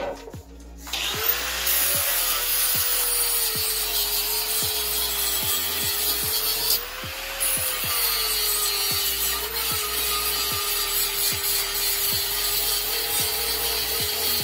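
Angle grinder starting up about a second in and grinding the edges of a welded steel box, its motor whine sagging and recovering in pitch as the disc is pressed into the metal and eased off.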